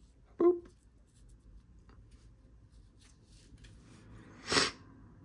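Quiet handling noises of a watch and its packaging being handled: a sharp tap about half a second in, soft rustling, and a brief scrape or rustle near the end.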